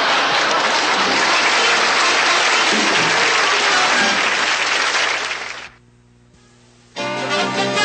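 Studio audience applauding, with band music faint underneath. The applause fades out about five and a half seconds in, and after a short lull music starts up near the end.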